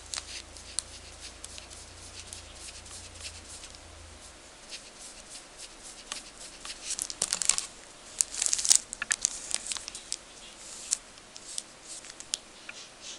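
A paintbrush scrubbing and tapping in a pan of honey watercolour, a run of small clicks and scratchy rustles that is densest about halfway through, then the brush stroking across paper near the end.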